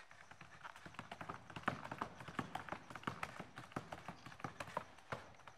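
A quick, irregular run of sharp taps and knocks, several a second, that starts just after the beginning and stops about five seconds in.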